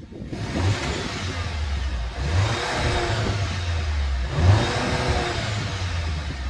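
A VW Tiguan 162TSI's 2.0-litre turbocharged four-cylinder is revved twice with the car standing still, each rev rising and falling back, through the stock exhaust with its factory resonator and fake tips.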